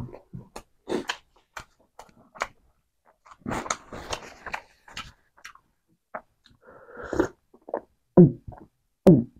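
Close-miked chewing of a mouthful of rice and chicken, with wet clicks and smacks, and a tissue wiped across the mouth near the middle. Near the end come two loud gulps of a drink from a glass mug, the loudest sounds here.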